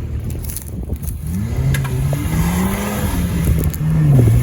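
Off-road 4x4's engine revving under load. The pitch rises about a second in, then goes up and down, and it gets louder near the end.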